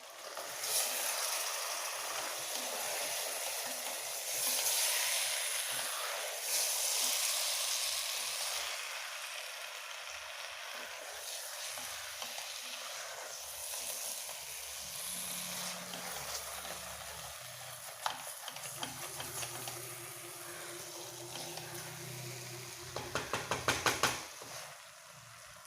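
Chicken and green plantain pieces sizzling in a pan while being stirred, with louder swells of sizzle during the first several seconds. Near the end comes a quick run of spoon clicks against the pan.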